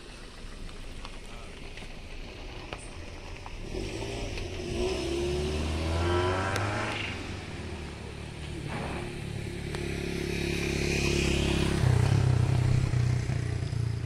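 Motor vehicle engine on the road, revving up with a rising pitch about four to seven seconds in, then running louder near the end as it comes closer.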